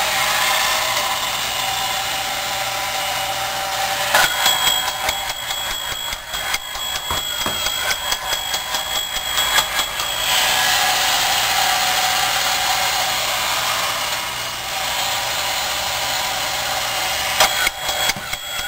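WE Toy Co. battery-operated tin ladder fire engine running: its electric motor and gears whir steadily, and its built-in bell rings in rapid, even strokes from about four seconds in for several seconds, then again near the end.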